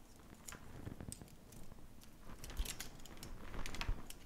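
Light, scattered clicks and taps from DC power-supply cables and their alligator clips being handled and connected to an opened iPhone on a rubber work mat.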